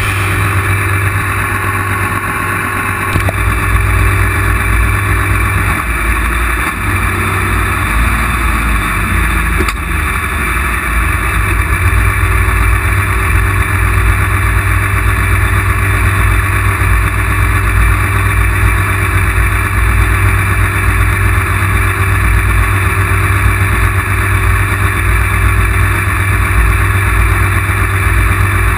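Pulling tractor's engine running steadily, loud and close from a camera mounted on its roll cage.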